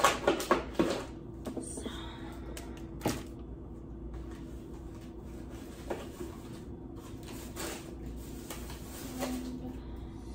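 Kitchen clatter while fruit and vegetables are cut up: a quick run of sharp knocks and clicks in the first second, then single knocks about three and six seconds in, over soft background music.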